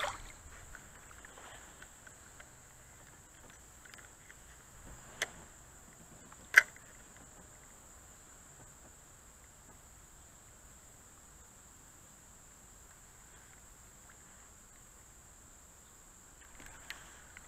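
Faint steady high-pitched insect chirring, with a sharp click about five seconds in and a louder one about a second and a half later, from handling the fishing rod and reel.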